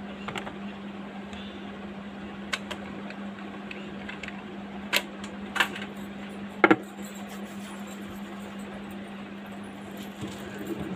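A steady low hum with about five short, sharp clicks and taps of small objects being handled. The loudest comes about two-thirds of the way through.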